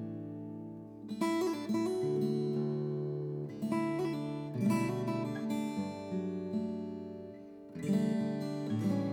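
Acoustic guitar music, plucked and strummed chords.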